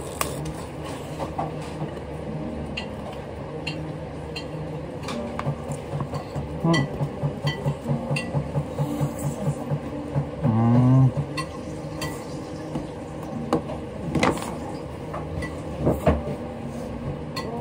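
Chopsticks and tableware clicking and clinking at a restaurant table during a meal, over a steady room background. Sharp clicks are scattered throughout. About six seconds in comes a run of quick low pulses, about six a second, followed near the middle by a short louder sound that rises in pitch.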